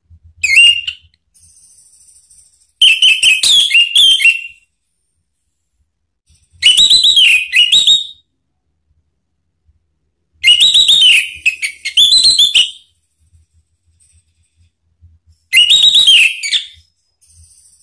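Orange-headed thrush singing: five loud phrases of quick, varied whistled notes, each a second or two long, with pauses of a few seconds between them.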